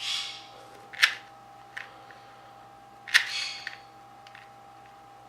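Dayan 2x2 puzzle cube being turned by hand: a few sharp plastic clacks with a short scrape after some of them, the loudest at the start and about three seconds in, as the layers are pushed through a corner-cutting test on the unlubricated cube.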